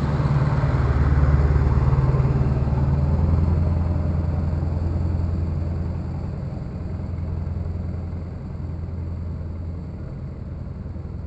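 Heavy dump truck's engine rumbling as it passes close by and drives off down the street, loudest in the first few seconds and fading away.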